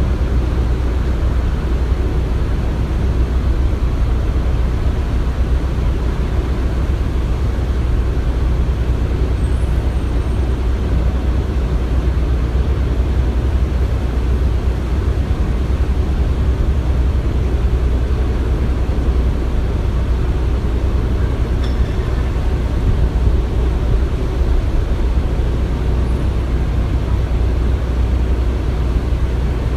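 Construction site ambience: a steady, deep engine-like rumble of heavy machinery running continuously, with a couple of faint brief high clinks.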